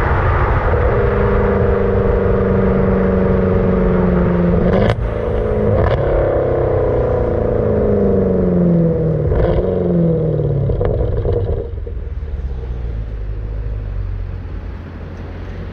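Car engine running at steady revs, then a sharp click about five seconds in, after which the engine note falls over several seconds, broken by two more clicks. The engine is quieter and lower after about twelve seconds.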